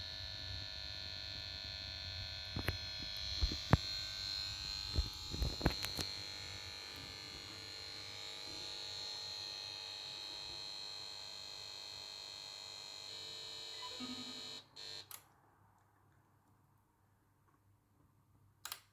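Faulty power supply board of a Samsung PS42A410C1XBT plasma TV buzzing with a steady high-pitched whine over a low hum, the noise it makes when the set fails to start past standby. Several sharp clicks come a few seconds in; the noise cuts off suddenly about three-quarters of the way through, and a single click follows near the end.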